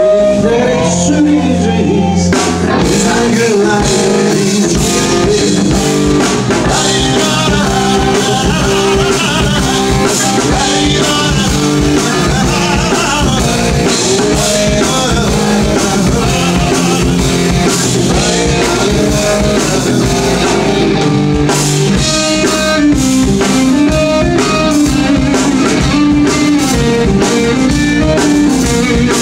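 Live band playing a bluesy rock number: electric guitar, bass guitar and drum kit, with a man singing.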